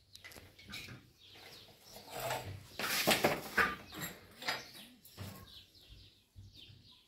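Plastic pipe fittings and tools handled on a tiled floor: irregular clicks and knocks, busiest about three seconds in.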